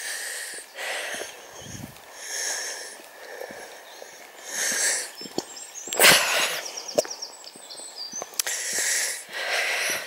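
A walker's breathing close to the microphone, one breath roughly every second, with light clicks from footfalls or camera handling on the path. The loudest moment is a sharper bump about six seconds in.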